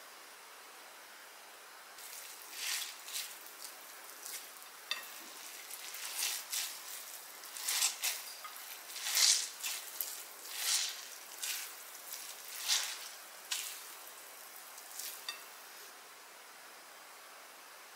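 Handfuls of freshly grated pumpkin squeezed by hand and dropped into a glass bowl: a string of soft, wet, rustling swishes, irregular and about a dozen in all, stopping a couple of seconds before the end.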